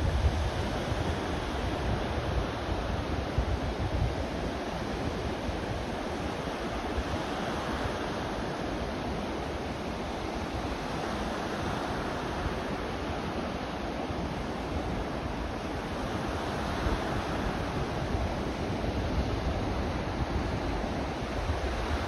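Low surf breaking and washing up a sandy beach, a steady rush of waves, with gusts of wind rumbling on the microphone now and then, mostly near the start and near the end.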